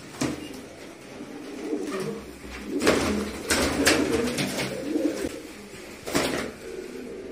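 A flock of fantail pigeons cooing, a low murmur that comes and goes, with a few short sharp sounds of wings flapping.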